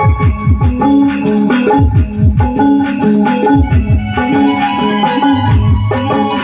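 Loud DJ music played through a sound system: deep bass hits that slide quickly down in pitch, in quick runs, under a sustained electronic keyboard melody.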